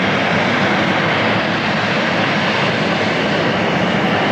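Jet engines of a Boeing 777-300ER (GE90-115B turbofans) running steadily, a constant loud rush with a low hum underneath.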